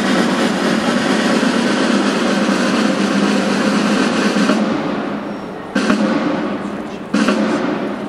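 Marching-band snare drums playing sustained rolls: one long, loud roll that slowly fades, then two shorter rolls that each start sharply and die away.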